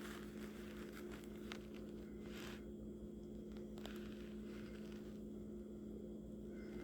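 Quiet room with a steady electrical hum, with a few faint clicks and a brief rustle over it.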